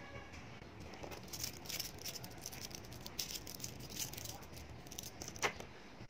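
Small magnetic balls clicking and rattling against each other as they are handled, with many quick ticks and one sharper snap near the end.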